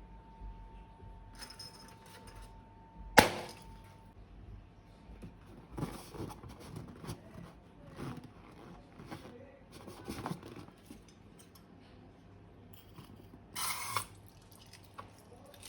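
Slime and plastic containers being handled. There is a sharp click about three seconds in, then a run of small irregular crackles and taps, and a brief rustle near the end.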